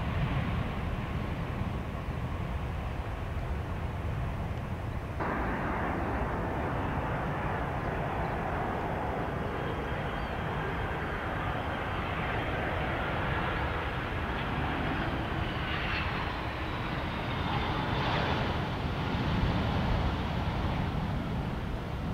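Aircraft engines running as a plane passes: a steady rumble with a faint whine that slowly falls in pitch. The sound gets abruptly fuller about five seconds in.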